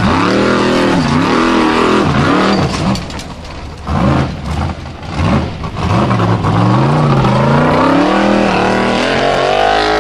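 Formula Offroad unlimited-class buggy's engine revving hard as it climbs a steep gravel bank, its pitch rising and falling again and again as the throttle is worked, easing off briefly twice in the first half.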